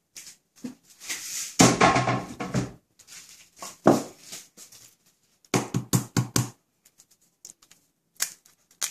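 Scattered knocks and taps from handling a stainless steel mixing bowl and kitchen utensils, with a run of about five quick taps about two thirds of the way in.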